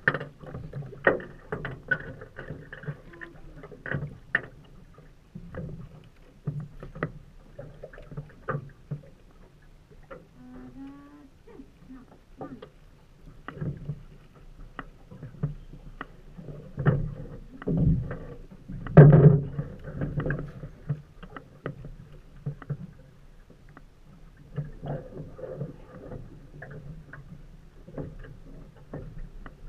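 Water lapping and slapping against the hull of a small aluminum fishing boat, with irregular knocks and clunks on the hull and one heavier thump past the middle.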